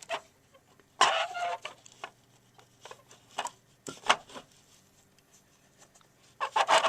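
Plastic clicks and rattles of a Yamaha YPG-525 keyboard key being worked up out of its mounting track. There is a busy clatter about a second in, a few single clicks, and another loud clatter near the end.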